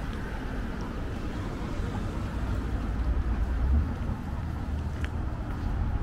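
Street ambience on a village high street: a steady low rumble of road traffic, swelling briefly a little before four seconds in.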